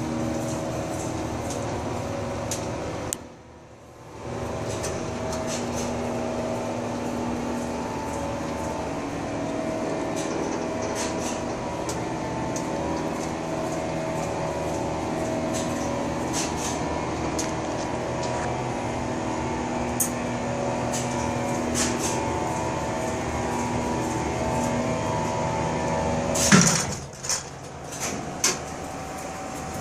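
Elevator car traveling in its hoistway, heard from the car top: a steady machine hum with several held tones and light ticking, cutting out briefly about three seconds in. Near the end comes a loud clunk, after which the hum drops lower.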